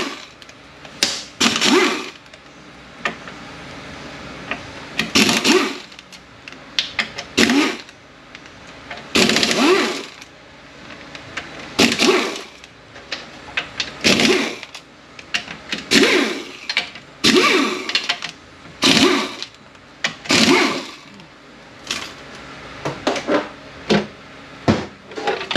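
Cordless power tool running in a dozen or more short bursts, each a brief rising whir, as it backs out the oil pan bolts on an AX4N automatic transaxle.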